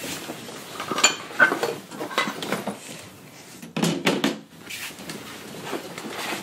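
Claw hammers being put down and knocked onto a folding table, with rummaging, in a series of knocks and clatters. The heaviest cluster comes about four seconds in.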